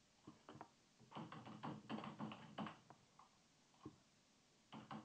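Faint typing on a computer keyboard: a quick run of about ten keystrokes, a pause broken by a couple of single clicks, then another run of keystrokes starting near the end.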